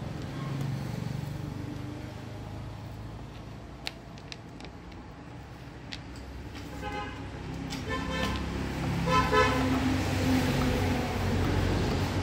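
A vehicle horn honking three short times about a second apart, starting about seven seconds in, over a low rumble of traffic; a few faint clicks come before it.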